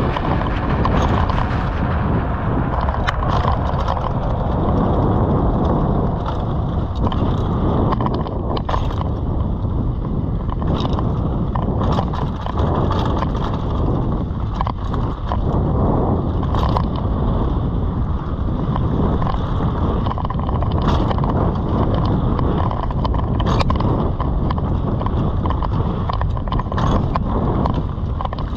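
Mountain bike being ridden along a dirt trail: a steady rush of tyre and wind noise, with scattered sharp rattles and knocks from the bike over bumps.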